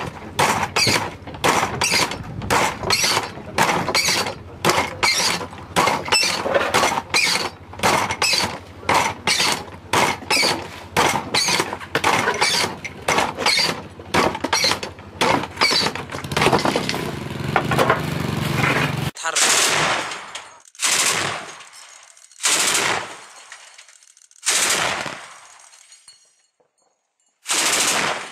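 Heavy gunfire: a long, steady run of sharp shots at about two or three a second. About two-thirds of the way in it gives way to five separate loud bursts from a truck-mounted anti-aircraft cannon, each one ringing off, roughly two seconds apart.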